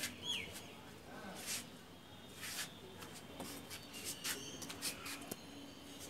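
Birds chirping: a curved, whistled chirp right at the start, then short sharp high chirps scattered through, over a faint steady background.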